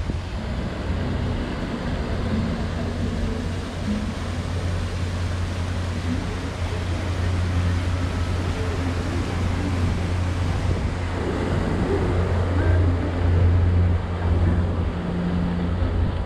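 A steady low engine hum over a general outdoor rumble, with faint voices in the middle.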